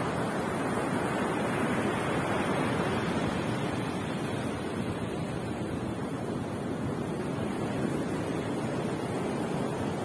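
Ocean surf breaking and washing up a sand beach: a steady rush of noise.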